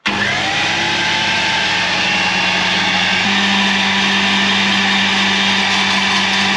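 Countertop blender switched on, its motor spinning up with a brief rising whine and then running steadily, whirring through hollandaise sauce as melted butter is poured in.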